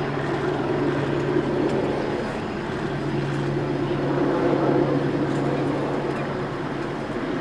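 Steady low hum of an idling engine, with a constant droning tone.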